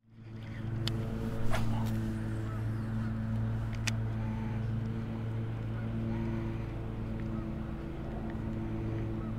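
A boat motor humming steadily at one pitch, with a few sharp clicks over it.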